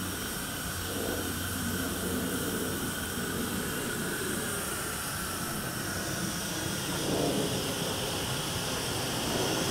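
Home-built mill steam engine (3-inch bore, 4-inch stroke) running on steam from a small boiler: a steady hiss of steam over a low mechanical hum, a little louder near the end.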